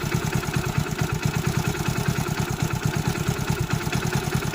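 Hero Honda Splendor's single-cylinder four-stroke engine idling with an even, steady beat. Its timing chain tensioner has just been repaired, and there is no loose timing chain noise.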